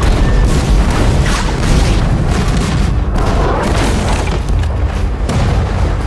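Broadside from a line of sailing warships' muzzle-loading cannons, the guns going off one after another in a string of booms over a deep, continuous rumble.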